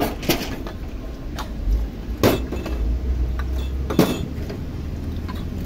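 Several sharp clinks of kitchenware, the loudest about two and four seconds in, over a steady low rumble of road traffic.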